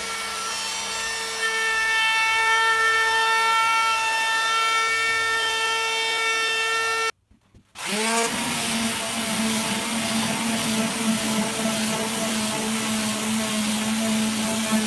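Trim router fitted with a half-inch roundover bit runs with a steady high whine, rounding over the sharp edges of a plywood top, and gets louder about a second and a half in. After a break about seven seconds in, an electric palm sander starts, rising in pitch as it spins up, then runs with a lower, rougher buzz as it sands the plywood.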